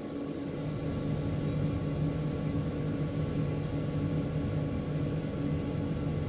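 Tower crane hoist drive running steadily while the hook and its load are lowered, a continuous low hum with a steady tone.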